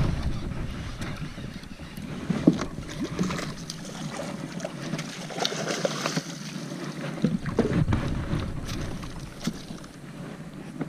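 A hooked bass thrashing and splashing at the surface beside a kayak as it is netted, with sharp knocks and sloshing water around the landing net.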